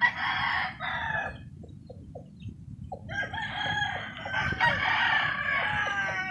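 Game-fowl roosters crowing: one crow at the start, a few short clucks, then a second, longer crow from about three seconds in.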